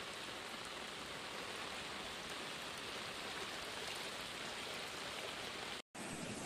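Steady rain, an even hiss with no distinct drops or other sounds, broken by a brief dropout to silence near the end.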